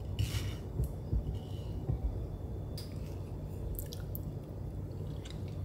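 Serrated bread knife slicing through a ripe mango, with a few short sharp ticks, over a steady low hum.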